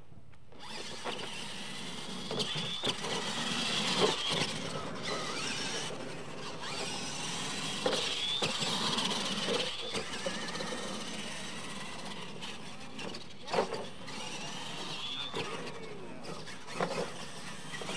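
Radio-controlled monster trucks racing on dirt: electric motors whining, rising and falling in pitch as the throttle is worked, over tyre noise. Several sharp knocks come through the race, from the trucks landing off jumps and hitting obstacles.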